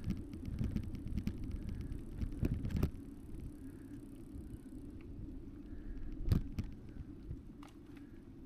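Riding noise from an e-bike picked up by an action camera's built-in microphone: a steady low wind and tyre rumble, with rapid fine ticking through the first three seconds and a few sharp knocks, the clearest about six seconds in.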